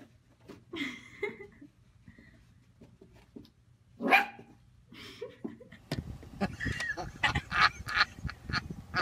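A puppy giving a few short barks and yips at its own reflection, the loudest bark about four seconds in. From about six seconds a run of sharp taps over steady background noise follows.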